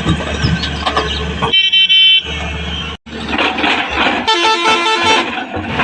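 Vehicle horn sounding over a running engine: one loud held blast about one and a half seconds in, then, near the end, a quick run of pulsing notes at changing pitch, like a tune-playing horn.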